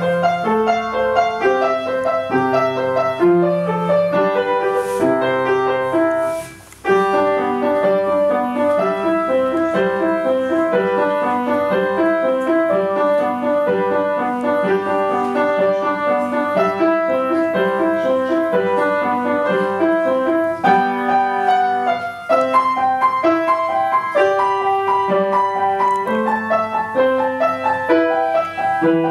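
Upright acoustic piano played solo: a piece of many quick notes, with a brief break about six and a half seconds in before the playing resumes.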